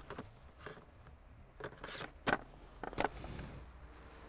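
Plastic clicks, knocks and light scraping as a battery is worked into the power head of an ION Alpha Plus electric ice auger, past its battery-locking latch. A handful of scattered clicks, the sharpest about two and three seconds in.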